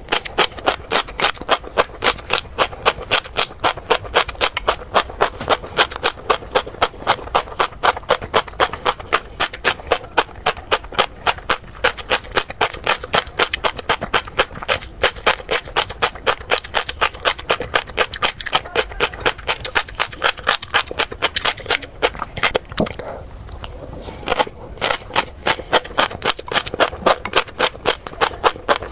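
Close-miked chewing of crunchy tobiko (flying fish roe), a rapid run of sharp crunching pops at about four a second, pausing briefly near the end before starting again.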